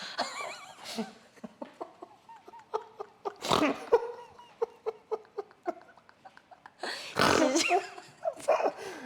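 Chiropractic adjustment: a run of small sharp clicks and cracks, with a loud thump and a short vocal cry from the patient about three and a half seconds in, and another louder one about seven seconds in.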